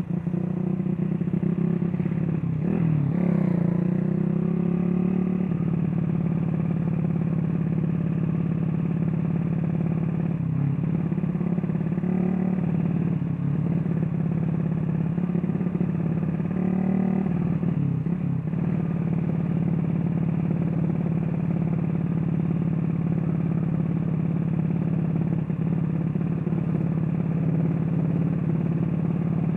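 Small motorcycle engine running steadily under way, with a few brief dips and rises in pitch as the throttle is eased and reopened.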